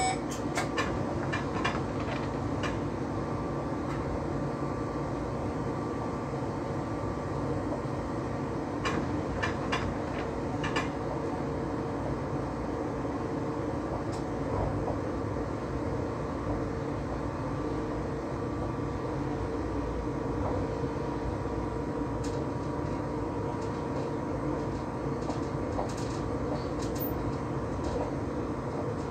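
Electric train running steadily along the track, heard from inside the driver's cab: a constant rumble with a faint steady hum and scattered light clicks.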